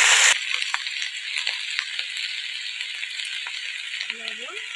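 Onion-flower stalks (peyajkoli) sizzling in hot oil in a wok, a steady hiss with scattered crackles. A louder rush of hiss cuts off abruptly at the very start, and a short rising voice-like call sounds near the end.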